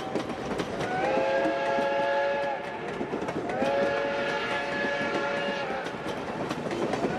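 Passenger train's chime whistle sounding two long blasts from the locomotive ahead, several notes at once, while the coaches roll past with wheels clicking over the rail joints.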